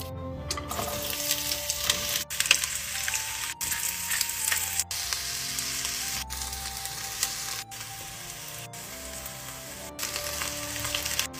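Butter and chopped onions sizzling in a hot enamelled cast-iron pot while being stirred with a spatula, a steady crackling hiss that breaks off for an instant several times. Soft background music with held notes plays underneath.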